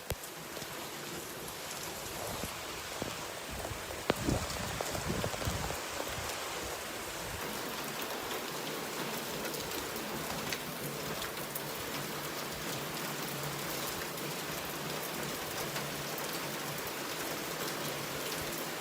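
Steady rain falling, pattering on a surface, with a short low rumble about four seconds in.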